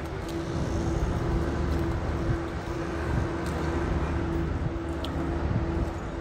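Ferry's diesel engine running steadily: a low rumble with a constant hum above it.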